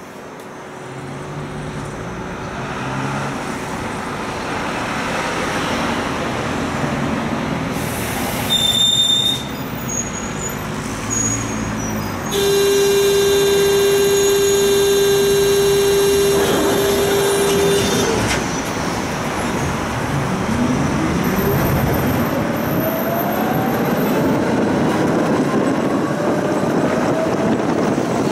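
Tram running with a low rumble, a short high beep, then a loud, steady electric buzzer for about five seconds. After that, the tram's traction motors whine up in pitch as it pulls away.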